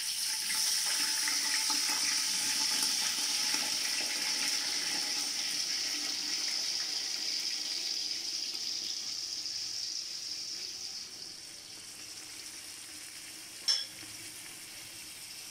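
Washed, drained rice sizzling as it is tipped into hot oil in an aluminium pot. The sizzle is steady and loud at first, then dies down about eleven seconds in, with a single short click near the end.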